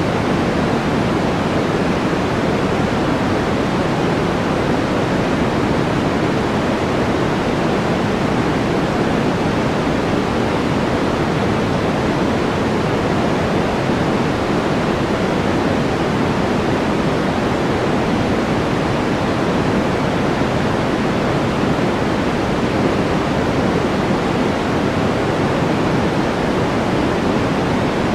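Steady white-noise background track: an even, unchanging hiss, heavier in the low and middle range than at the top.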